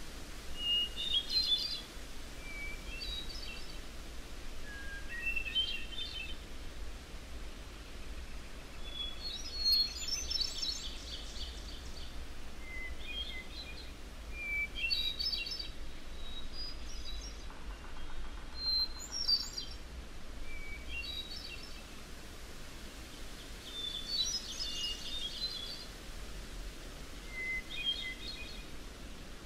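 Wild songbirds singing in a nature field recording: short, mostly rising phrases about every two seconds, with two longer trilled songs from more than one bird, over a steady low background hiss.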